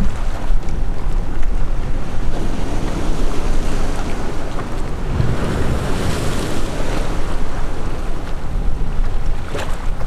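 Wind blowing across the microphone over choppy sea water washing around a small skiff, a steady loud rushing noise.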